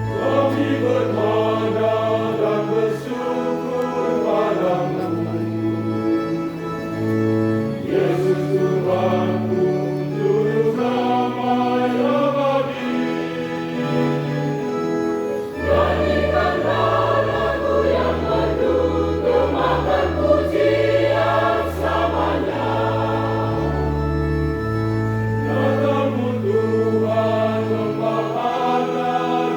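A church choir singing a hymn together in parts, over an instrumental accompaniment that holds low bass notes changing every second or two.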